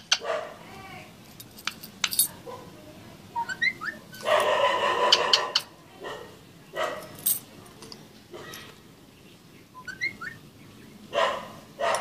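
A green parakeet calling in short squawks and chirps, some of them sliding up in pitch, with a longer harsh call lasting over a second about four seconds in. Metal keys clink now and then.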